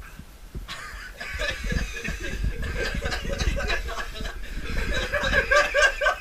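Men chuckling and snickering, starting about a second in.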